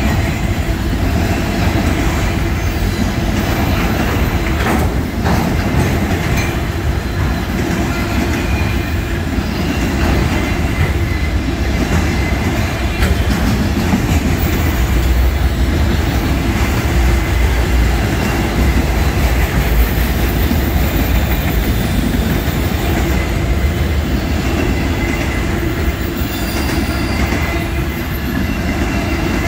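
Autorack freight cars of a Norfolk Southern mixed freight rolling past: a steady, loud rumble of steel wheels on rail.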